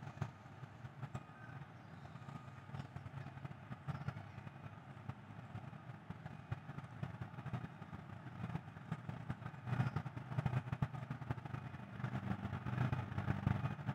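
Outdoor background noise: a low, steady rumble of distant motor traffic, swelling louder twice in the second half.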